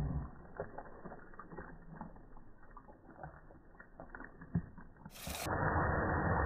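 Boiling caramel in a pan, heard slowed down and lowered in pitch by slow-motion playback: faint scattered pops and clicks at first. About five seconds in a short hiss is followed by a louder, steady sizzling as cold cream is poured into the hot caramel.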